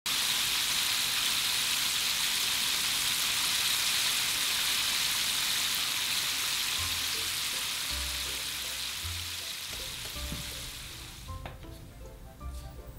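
Battered chicken pieces deep-frying in hot oil: a steady, dense sizzle that fades away near the end as music with a low bass line comes in.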